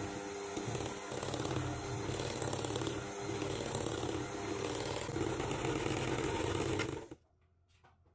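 Electric hand mixer running, its wire beaters churning eggs into thick cream cheese batter in a glass bowl; the motor cuts off about seven seconds in.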